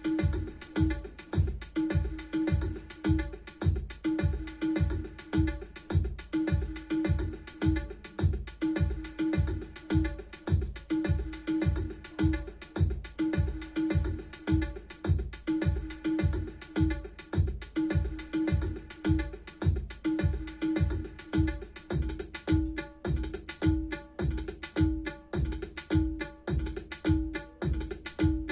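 Indian-style music with tabla and drums played back on an Obage HT-101 home-theatre speaker system, a steady deep bass beat about twice a second.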